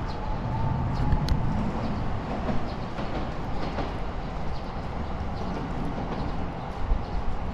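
A train running past out of sight, a steady rumble with a faint whine that fades about a second in.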